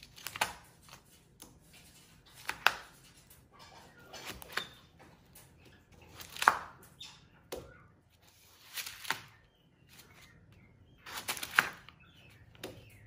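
A pen scribbling hard on a sheet of paper on a stone countertop, in irregular scratchy strokes a second or two apart, with the paper crinkling as it is pushed and bunched up by a capuchin monkey.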